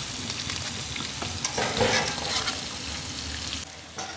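Oil sizzling as slices of snakehead murrel fish fry in a wide metal pan, with metal tongs ticking against the pan as the pieces are turned. The sizzle drops off suddenly near the end.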